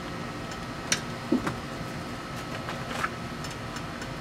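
Wrench on a lawn mower's blade bolt as it is tightened: a sharp metallic click about a second in, a duller knock just after, and another click near three seconds, over a steady low hum.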